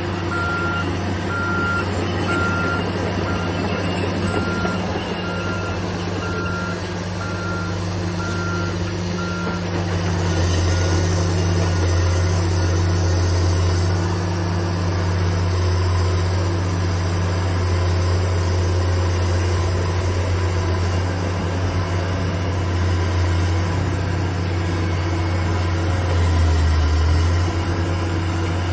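Bulldozer's diesel engine running, with its backup alarm beeping about once a second while it reverses; the beeping stops about ten seconds in and the engine grows louder as it works.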